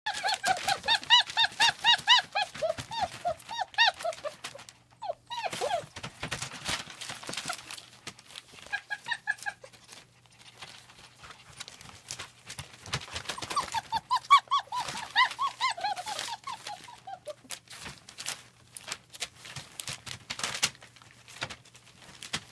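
German Shepherd puppies whining and yelping in quick runs of high, rising-and-falling cries, about five a second, in the first few seconds and again past the middle, with one long falling whine between them. Scattered clicks and taps run underneath.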